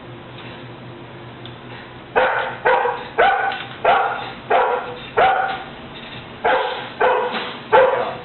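A dog barking: about two seconds of quiet, then six loud barks in quick succession, a short pause, and three more barks near the end.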